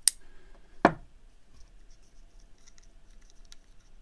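Small hand-tool work on a folding knife's pivot: a sharp click, then a louder knock just under a second in, followed by faint light scratching and ticks as a bit driver works the pivot screw and parts are handled.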